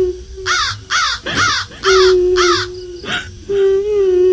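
A crow cawing five times in quick succession, about two caws a second, in a horror sound-effect mix. Beneath it runs a long held wailing tone that breaks off and returns, sagging slightly in pitch each time.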